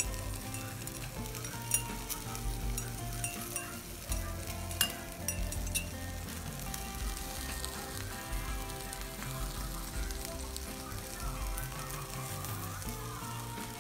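Instrumental background music over a steady crackling sizzle, with sharp clinks in the first half from a spoon stirring in a mug.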